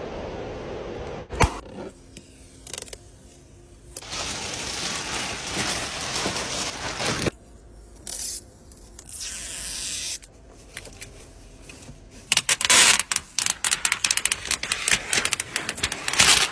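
Protective plastic film being peeled off a new car's door sill plate, crackling and tearing in several stretches. The last stretch, near the end, is the loudest and full of sharp crackles.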